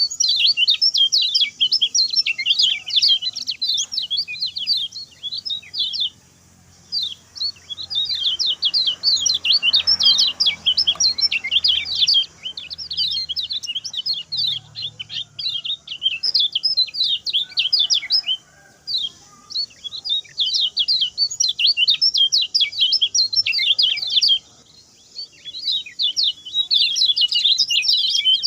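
Lemon-bellied white-eye (kecial kuning) singing its fast, short song: rapid high chirps in dense runs, with brief pauses about a quarter of the way in and again near the end.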